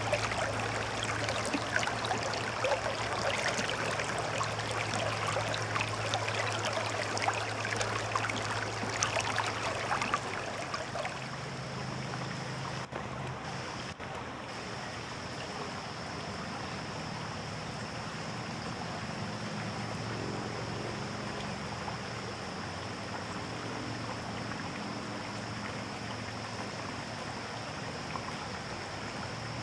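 Shallow, rocky river flowing: water splashing and rushing over rocks close up. After about ten seconds it gives way to a softer, steadier babble of the river running over its stony bed.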